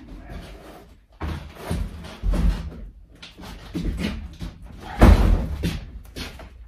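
Irregular knocks and clunks of a boxed appliance being moved on a hand truck, with one loud thump about five seconds in.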